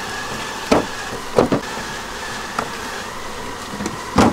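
Honeybees buzzing in a steady hum around an opened hive, broken by a few sharp knocks as wooden honeycomb frames are brushed and lifted in and out of the hive box.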